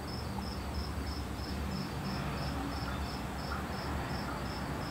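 A cricket chirping steadily, about four short high chirps a second, over a low, steady city rumble.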